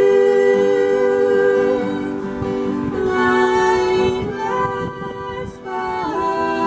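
Slow song: a voice holding long sung notes over plucked acoustic guitar, with a new sung line starting near the end.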